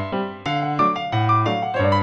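Background music played on piano or electric piano, a run of struck notes in a steady rhythm.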